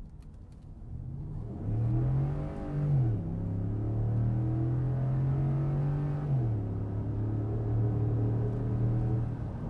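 Ford F-150 pickup's engine pulling as the truck accelerates. The engine note rises and then falls as the truck shifts up about three seconds in. It holds steady, then drops again with another upshift a little after six seconds.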